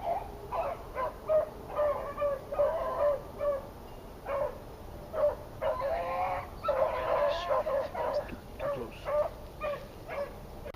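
Hunting dogs barking and yipping in many short, repeated calls, with a denser stretch of longer, overlapping calls about six to eight seconds in.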